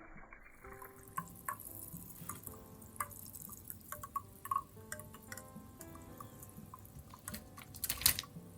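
Mitsuya Cider fizzing in a glass: scattered, irregular little pops and crackles of carbonation bubbles bursting at the surface, growing denser near the end.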